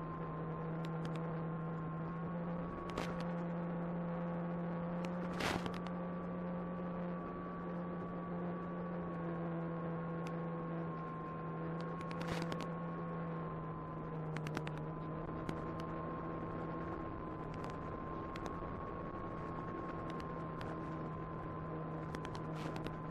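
Electric motor and propeller of an Apprentice 15e RC airplane running steadily in flight, a constant hum whose pitch rises and falls slightly with throttle. Occasional sharp crackles and clicks come through, the loudest about five seconds in.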